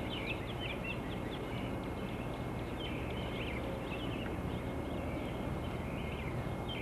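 Several songbirds singing in the pre-dawn chorus: many quick chirps and short rising and falling notes overlapping, over a steady low hiss.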